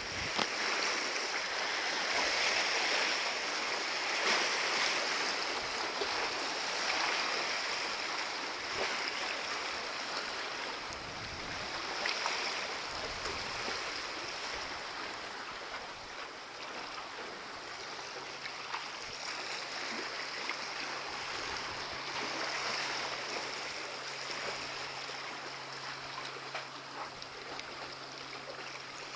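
Sea water washing and lapping against a harbour breakwater: a steady watery hiss that swells and ebbs every few seconds. A faint low steady hum joins about two-thirds of the way through.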